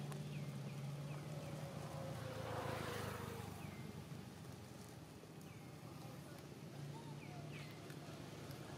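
A low steady motor hum, like a distant engine, for the first second and a half and again briefly near the end, with a few short high chirps over it.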